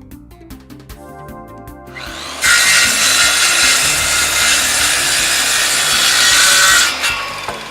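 Power saw cutting through a laminate floorboard: a loud, steady cut that starts abruptly about two and a half seconds in and stops about four and a half seconds later, over quiet background music.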